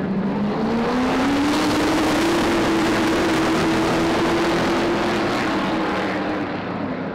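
A pack of Super Stock race cars accelerating together under the green flag. The engine note rises in pitch over the first couple of seconds, holds as the field passes, then fades near the end.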